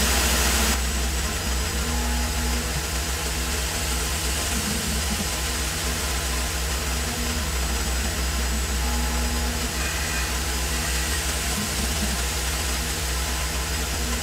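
Tormach PCNC 1100 CNC mill running, its spindle and end mill machining a 4140 steel muzzle brake held in the 4th-axis chuck. A steady low hum and an even hiss run throughout, with short tones coming and going.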